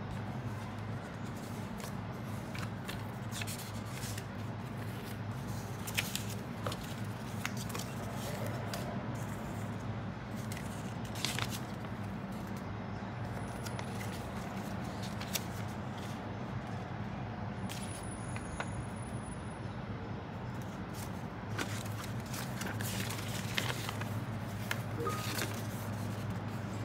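Folded paper leaflets handled and unfolded, rustling and crinkling in scattered sharp rustles that get busier near the end as a long folded sheet is opened, over a steady low hum.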